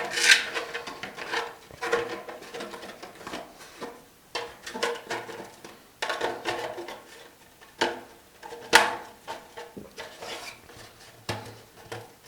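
3D printed plastic lamp shade pieces being handled and pressed together, rubbing and clacking, with sharp clicks as their hooks snap into place; the loudest clicks come at the very start and about nine seconds in.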